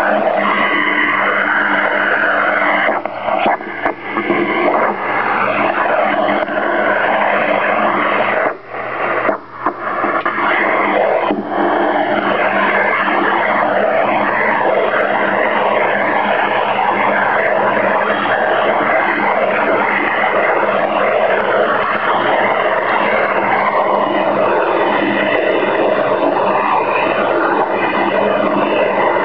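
Loud HF radio interference heard through an Icom IC-756 Pro III receiver in AM mode as it is tuned across the band: a dense, unbroken noise that blots out any useful reception. The source of the interference is unidentified. The noise dips briefly a few times in the first ten seconds.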